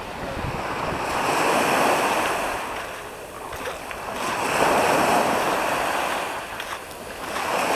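Small surf waves breaking and washing up the beach, the rush of water swelling and easing twice.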